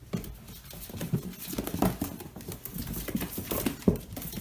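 Dog sounds: a fast, irregular patter of small taps and scuffles.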